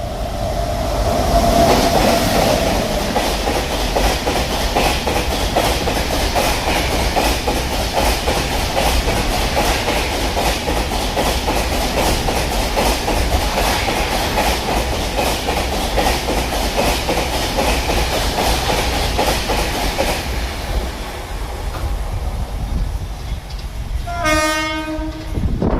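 An express train hauled by a WAP-7 electric locomotive passes at speed, its coach wheels setting up a heavy, rapid clatter over the rail joints that eases off about 20 seconds in. A horn sounds at the very start and again briefly near the end.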